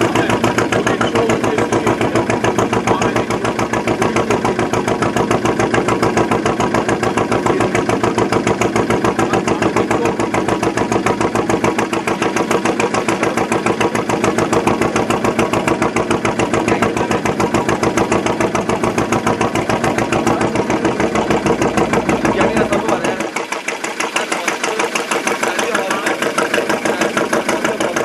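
Boat engine running steadily with an even, rapid pulse; about 23 seconds in its deep rumble drops away, leaving a thinner sound.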